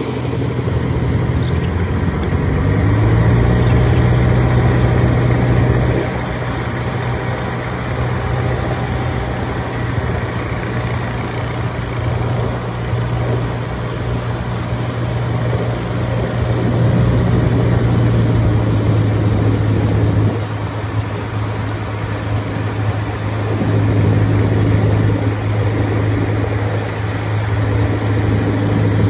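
An engine running steadily throughout, its low hum swelling and easing a little in loudness.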